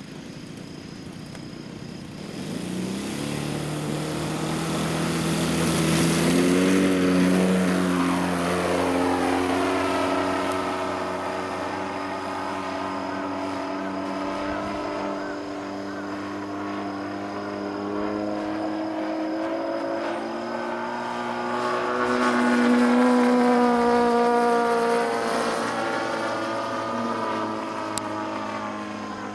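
Radio-controlled model airplane's propeller motor running up to full power about two seconds in for takeoff, then buzzing steadily in flight, its pitch sweeping down as the plane flies past, twice.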